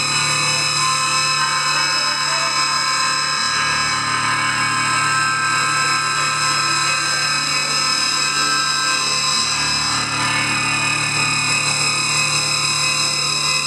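Loud, steady drone of amplified electric guitar noise through effects: a dense, machine-like whine of many held high tones over a low hum, unchanging throughout.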